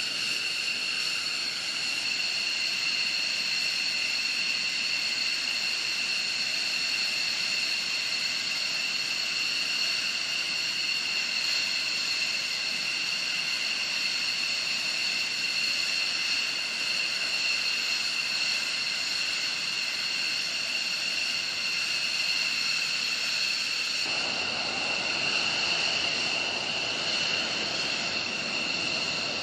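F-15 Eagle fighter jets' turbofan engines running at ground idle with a steady high-pitched whine over a rushing hiss. Near the end a rougher rush of engine noise joins the whine.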